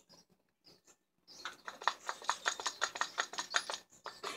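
A rapid run of small clicks and rattles, about ten a second, from angle grinder parts being worked together by hand. It starts about a second and a half in and stops shortly before the end.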